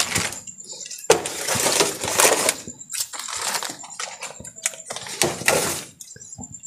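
Clattering, knocking and rustling as goods are handled and packed into a tricycle sidecar, with a few sharp clinks and longer stretches of rustling.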